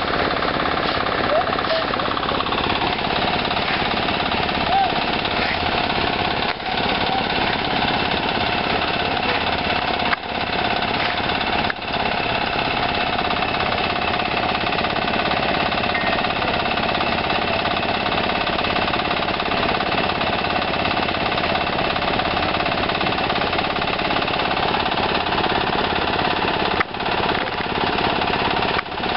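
Construction machinery running continuously during a concrete pour, a steady mechanical racket that dips briefly a few times.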